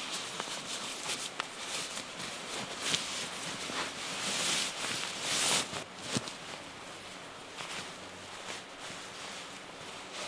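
Nylon shell of a puffy sleeping bag rustling and swishing in irregular bursts as it is handled and spread out over a sleeping pad, with small clicks and taps. The rustling is loudest about halfway through.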